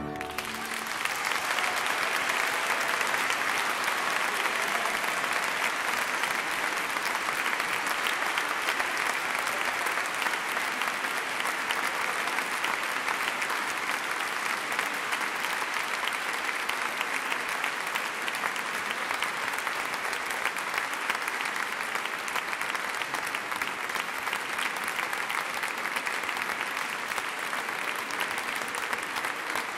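A concert audience applauding steadily. The last chord of the brass-and-organ music dies away just as the clapping begins.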